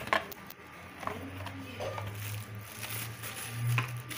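Cardboard box and plastic bag being handled as a keyboard in its plastic wrapping is taken out of the box: scattered light knocks and rustles, over a low steady hum from about a second in.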